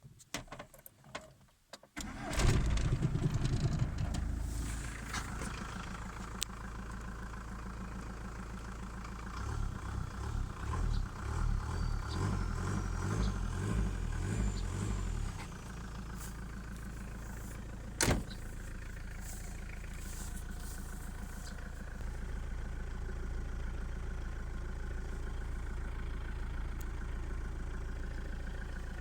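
Volkswagen Passat B3 1.9 turbodiesel engine starting about two seconds in, then idling. Between about ten and fifteen seconds it is blipped several times and a faint turbocharger whistle rises and falls, then it settles back to idle. A single sharp click comes about eighteen seconds in.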